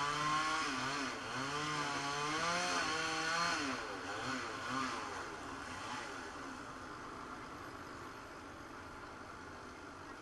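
A small petrol engine revving up and down repeatedly for a few seconds, then fading away into a steady background hum.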